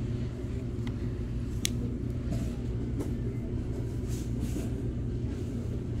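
Steady low rumble and hum of a large store's background, with a sharp click about a second and a half in and a few light rustles as a hardcover book is handled and turned over.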